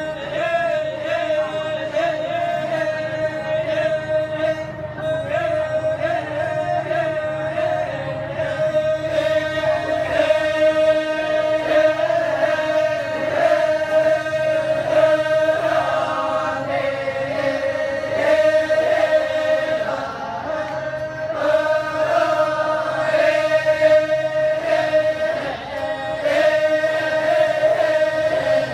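A group of voices chanting in chorus over a steady held note. It stops abruptly at the end.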